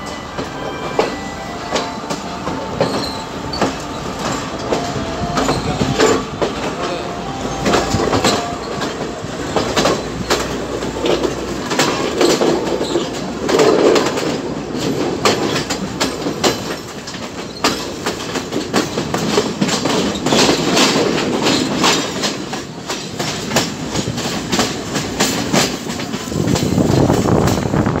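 Class S14 diesel multiple unit passenger train running, its wheels clattering over rail joints and pointwork in quick irregular clicks, with some wheel squeal on the curve.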